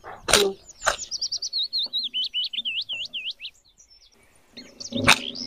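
A small bird singing a quick run of high twittering chirps, each note dipping and rising, for about three seconds. A few sharp clicks sound around it, the loudest near the end.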